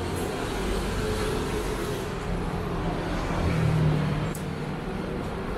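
City street traffic: a steady rumble of passing cars and motor vehicles, with one engine growing louder and peaking about four seconds in.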